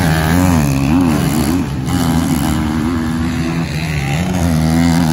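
Motocross dirt bike engines revving on the track, their pitch climbing and dropping again and again as the riders work the throttle, loudest at the start and again near the end.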